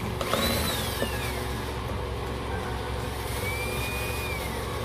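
A small motor's high whine, winding down just after the start, then rising, holding and falling again near the end, over a steady low rumble.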